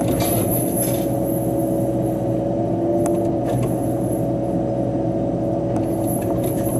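Cat 311 excavator's diesel engine and hydraulic flail mower head running steadily, heard from inside the cab, as a hum with a steady whine on top. A short crackle in the first second and a few sharp ticks later on come from the flail chewing brush and debris.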